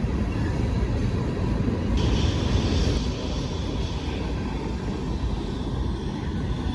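Freight train rolling past: a steady, heavy rumble of wheels on rail, with a brighter hiss for about a second partway through.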